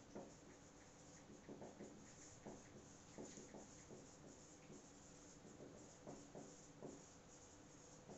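Faint squeaks and scratches of a marker writing on a whiteboard, in short irregular strokes.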